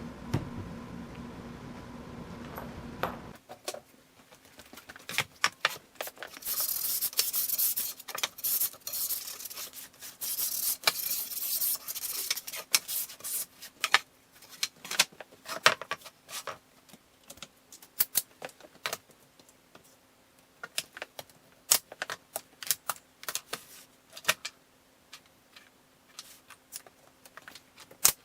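A steady machine hum cuts off about three seconds in, followed by irregular metallic clicks, clinks and short scraping rustles from hand tools and parts being handled at a workbench.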